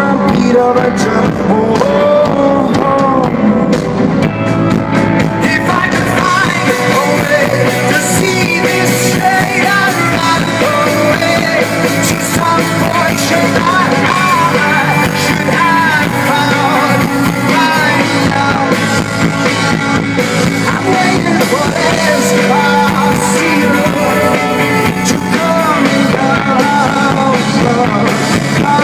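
Live rock band playing a song at full volume, with guitar and a sung vocal line over it.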